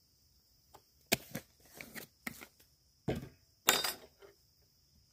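A handful of sharp knocks and clicks from hard objects being handled and set down, two of them much louder, with a short rattling clatter a little past the middle.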